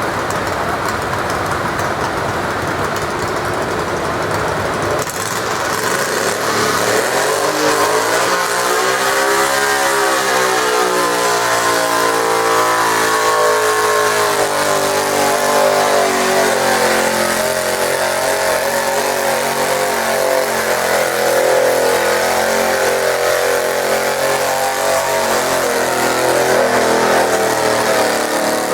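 Garden tractor engine working hard under load while pulling a weight sled: about six seconds in its pitch rises, then it holds high and wavers for the rest of the pull.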